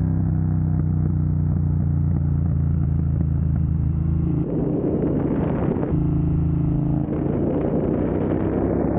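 2022 Triumph Bonneville Speedmaster's 1200 cc parallel-twin engine idling through a Jekill & Hyde electronically adjustable valved exhaust, with a steady note for the first few seconds, then twice briefly turning rougher and raspier for about a second and a half, as with blips of the throttle.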